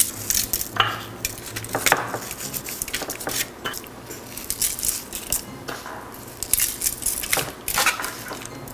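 Handling noise as raw chicken is salted by gloved hands in a foil-lined ceramic baking dish: irregular light clicks, taps and rustles of the foil lining, with the odd brief clink from the dish or the small ceramic salt bowl.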